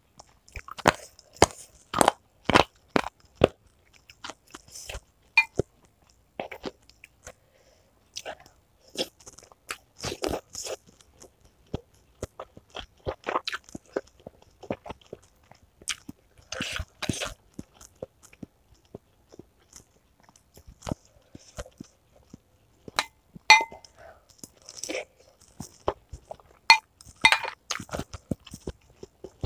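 Close-up eating sounds of meatballs with crunchy chicken cartilage being chewed: irregular sharp crunches in clusters with short pauses between.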